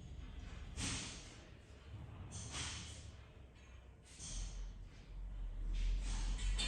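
A person breathing close to the microphone, several breaths a second or two apart, with a low rumble coming in about four seconds in.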